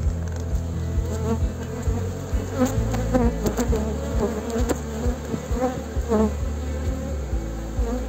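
Honeybees buzzing around a hive. Single bees pass close by with brief rising and falling whines over a steady low hum, with scattered light clicks.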